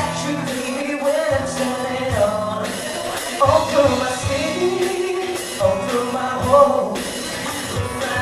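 Live band playing a pop song: singing over guitar and a drum kit keeping a steady beat.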